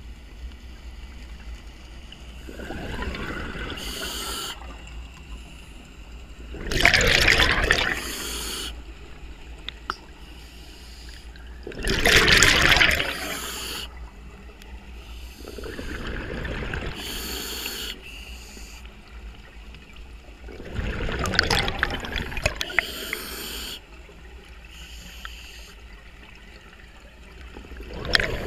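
Scuba diver breathing through a regulator underwater: five bubbling exhalations about every four to five seconds, each followed by a short hiss from the regulator.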